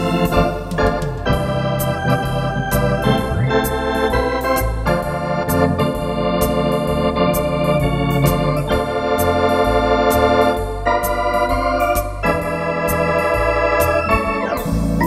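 Wersi Atlantis electronic organ played with a swinging, Hammond-style drawbar registration: sustained full chords and melody on the manuals over a pedal bass line, with a steady ticking beat.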